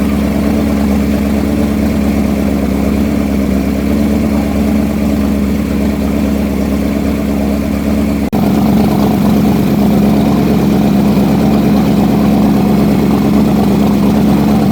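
Boat engine running steadily at cruise, a constant low drone with a brief break about eight seconds in.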